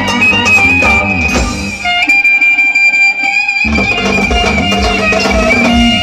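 Loud Roman havası dance music, with a held high melody line over a steady drum beat and bass. About two seconds in, the drums and bass drop out for a second and a half, leaving the melody alone, then the beat comes back.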